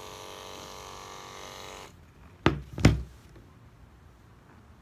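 Electric pet grooming clippers running with a steady hum, switched off about two seconds in. Two sharp knocks follow about half a second apart as the clippers are set down on the table.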